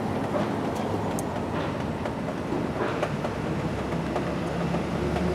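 Diesel engine of a Komatsu WB93 backhoe loader running steadily, a continuous low drone with a low hum that gets a little stronger near the end.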